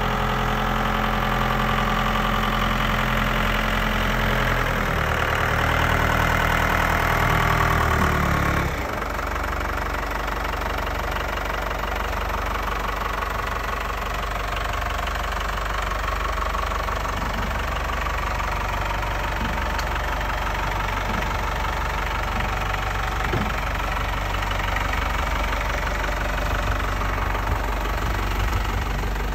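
Komatsu FD20-11 forklift's diesel engine running, a little louder and changing in speed for the first eight or so seconds, then dropping back about nine seconds in and running at a steady idle.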